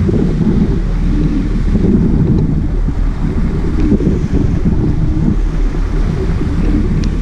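Wind buffeting the microphone over the steady low running of a sportfishing boat's engine and sea water churning along the hull.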